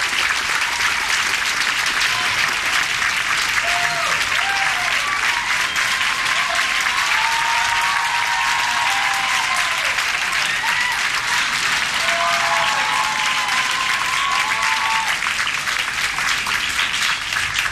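Audience applauding steadily, with scattered whoops and cheers over the clapping.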